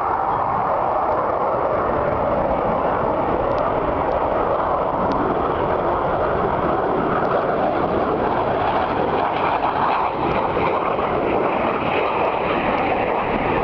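Blue Angels F/A-18 jets flying overhead, their engines making a steady, loud rushing noise that never lets up.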